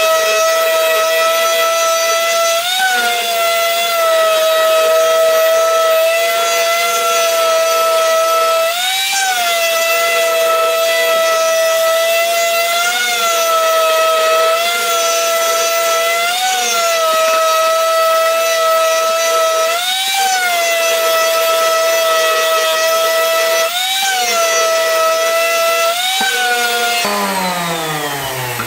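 Electric random orbital sander running on wood, smoothing a glued-in inlay flush. It is a steady high whine whose pitch rises briefly several times. Near the end it is switched off and winds down in a falling whine.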